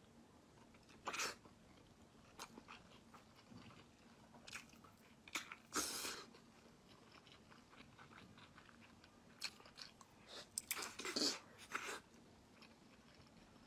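Faint, close-up biting and chewing on a giant peeled boiled egg: scattered short bites and chews, with the busiest stretch of bites about ten to twelve seconds in.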